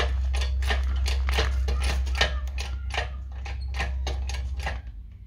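Engine hoist running with a steady low hum and rapid, even clicking, about three clicks a second, both stopping near the end.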